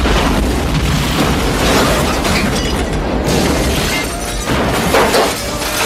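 Action-film car explosion effects: a loud blast that sets in all at once and carries on as dense crashing noise, with further bursts about two and five seconds in.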